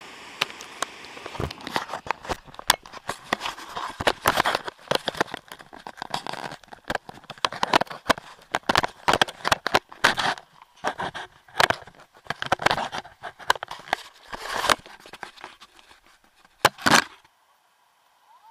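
Handling noise on an action camera's own microphone: irregular scraping, rustling and sharp clicks as the camera rubs against skin and clothing while it is moved and fitted. The noise stops about a second before the end, once the camera is set still.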